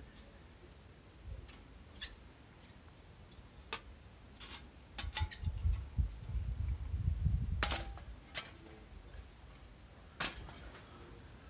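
Light metal clicks and clinks as the perforated steel panels of a small folding stove are unhooked and folded flat, a handful of separate clicks with the sharpest about three quarters of the way through and again near the end, over a low rumble in the middle.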